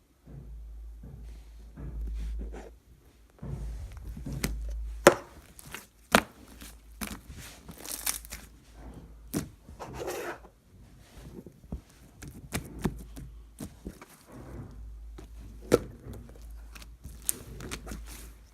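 Irregular knocks, taps and rustling handling noises close to the microphone, with a steady low rumble underneath.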